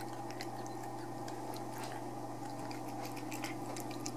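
A cat chewing and licking wet cat food off a plastic plate: irregular small clicks and smacks over a steady low hum.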